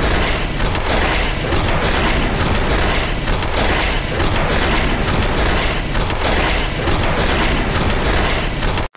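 Loud, dense rumbling noise full of rapid booms and crackles, like a barrage of gunfire and explosions, cutting off abruptly near the end.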